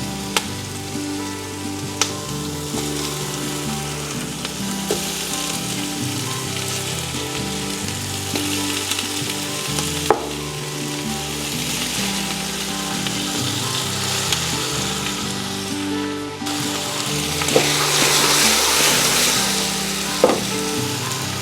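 Chicken pieces frying in hot oil with sauteed onion and ginger: a steady sizzle that grows louder near the end. A few sharp clacks cut through it.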